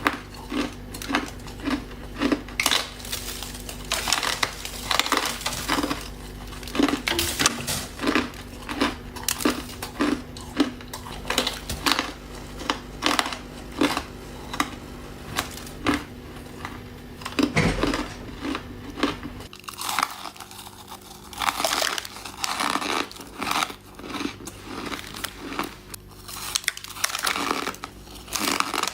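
Ice being bitten and chewed close to the microphone: a dense run of sharp, crisp crunches, about two a second. A faint steady low hum underneath stops about two-thirds of the way through.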